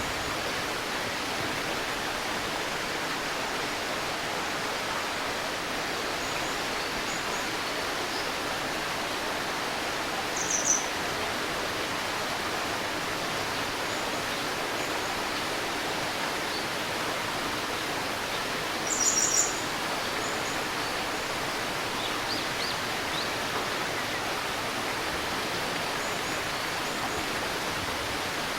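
A river babbling steadily, with short high bird chirps over it: a brief one about ten seconds in, a louder cluster a little before twenty seconds, and a few faint ones scattered elsewhere.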